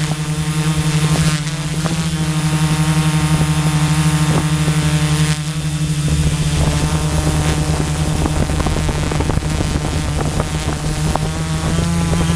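Tarot Iron Man 650 quadcopter's brushless motors and propellers, heard from the onboard camera: a steady buzzing hum with wind noise over it, its pitch shifting a little near the end as the throttle changes.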